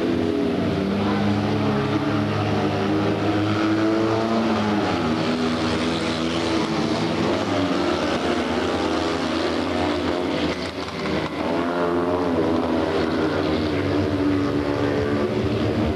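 Several Fiat 126p race cars' small two-cylinder air-cooled engines buzzing at high revs as they lap the track, overlapping notes rising and falling in pitch as the cars accelerate and lift. About ten and a half seconds in the sound briefly drops, then one engine note climbs again.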